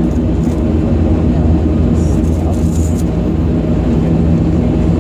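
British Aerospace ATP's Pratt & Whitney Canada PW126 turboprop engine and propeller running steadily, heard from inside the passenger cabin as a loud, even drone made of several low hums.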